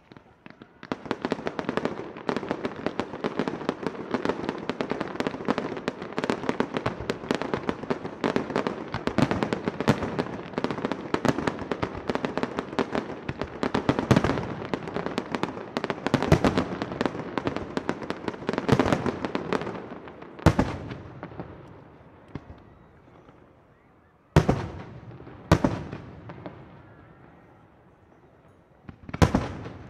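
Aerial firework shells bursting: a dense, rapid barrage of cracks and pops from about a second in, thinning after about twenty seconds into a few single loud bangs, each fading away.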